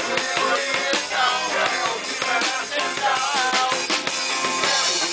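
Live rock band playing, the drum kit keeping a steady beat under guitar and melody lines.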